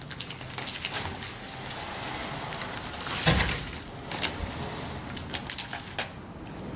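Dry cut branches and twigs rustling and crackling as they are handled, with one heavier thump a little over three seconds in.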